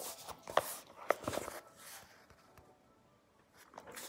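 A book page being turned: a few short rustles and clicks in the first second and a half and again near the end, with a quiet pause between.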